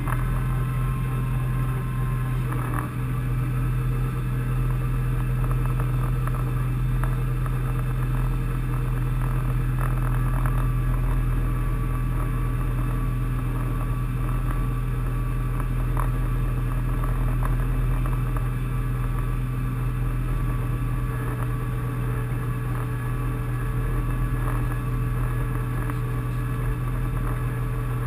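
Tractor engine running at a steady, unchanging speed under load while pulling a plow through the soil, heard from inside the cab as a constant low drone.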